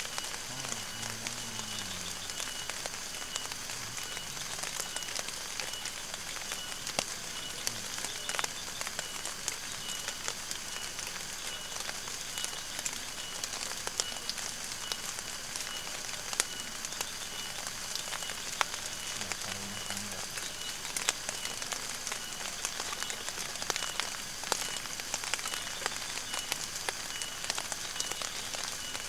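Rain falling, with many small drop ticks over a steady hiss.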